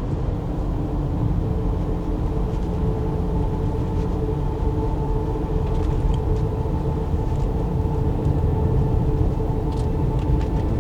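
Steady low rumble of road and engine noise inside a moving car's cabin, with a faint steady hum over it.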